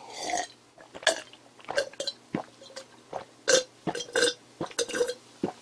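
A person gulping down a glass of drink in one go, swallowing in a steady run of gulps about two a second.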